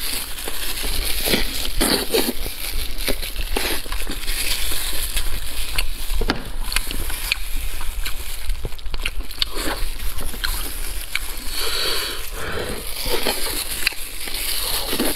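Eating sounds: wet chewing and lip smacking on braised pork knuckle, mixed with the sticky tearing of its skin and meat by plastic-gloved hands. Many short, wet clicks follow one another throughout.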